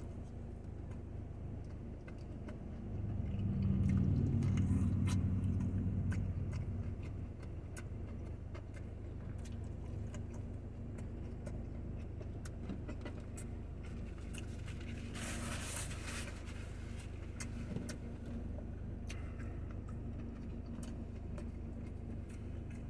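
Steady low hum of a vehicle engine, swelling louder for about four seconds near the start. Scattered faint clicks and a short rustle about fifteen seconds in.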